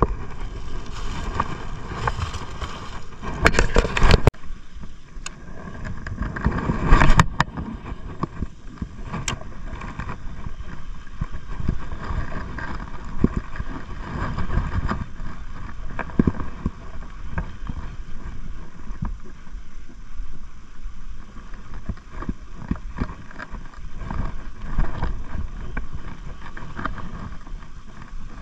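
Knocks, bumps and rustling of handling gear inside a small boat, with two louder bursts of knocking about 4 and 7 seconds in, over a low rumble.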